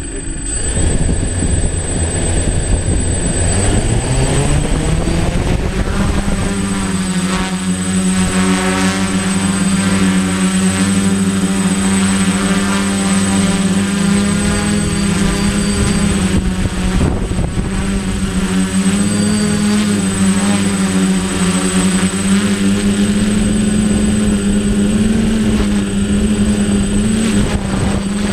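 Electric motors and propellers of a DJI Flame Wheel 450 quadcopter spinning up, the buzz rising in pitch over the first six seconds, then holding as a steady propeller drone with wind rumble underneath.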